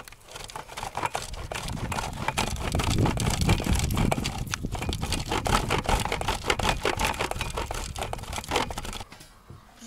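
Bar of household laundry soap being grated on a metal box grater into an enamel bowl: quick, repeated rasping strokes that stop about nine seconds in.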